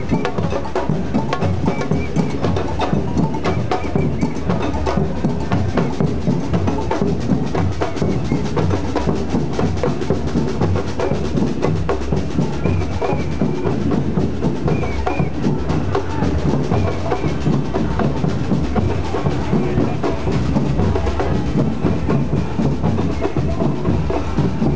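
A large Brazilian maracatu drum troupe playing a steady driving rhythm on rope-tuned alfaia bass drums and snare drums, with no break in the beat.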